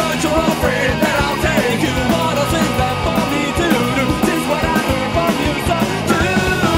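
Pop-punk rock song playing: a band with drums and guitars, and a sung lead vocal over steady, driving drum hits.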